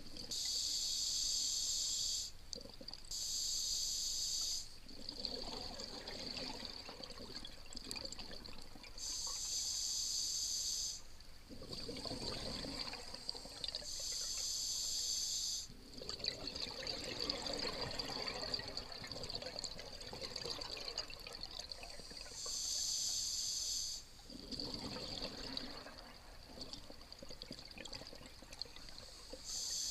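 A scuba diver's regulator breathing underwater: a hissing inhalation through the demand valve, then a longer gurgle of exhaled bubbles, repeated through several slow breaths.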